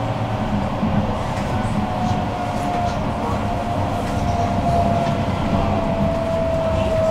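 Tram running on its rails, heard from on board: a steady low rumble with faint ticks, and a thin electric whine that slowly falls in pitch through the second half.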